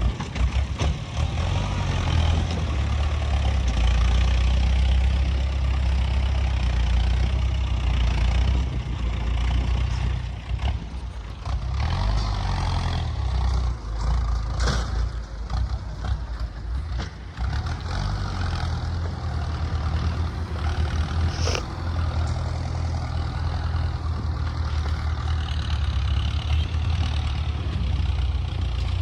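Heavy diesel engine of an excavator running under varying load, rising and falling as it works, with a couple of sharp metallic knocks partway through.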